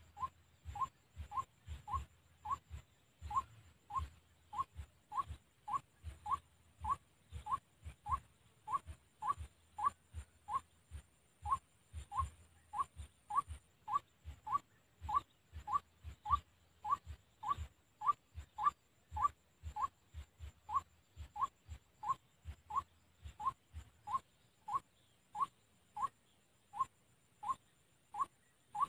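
White-breasted waterhen call: a short rising note repeated steadily, nearly two a second, with a low thud under each note.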